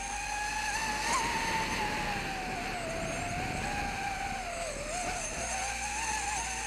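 FPV quadcopter's electric motors and propellers whining in flight, the pitch wavering up and down as the throttle changes, with a couple of brief dips.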